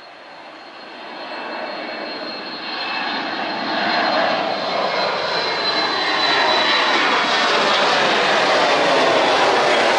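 Twin-engine jet airliner climbing out after take-off and passing overhead: the engine noise swells over the first four seconds to a loud, steady rush. A high fan whine fades out around seven seconds in, and the pitch falls as the jet goes past.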